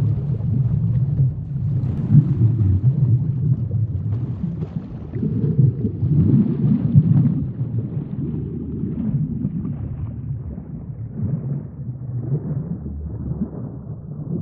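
Sea ambience: a deep, muffled rumbling wash of water that swells and eases every couple of seconds, with a faint hiss above it.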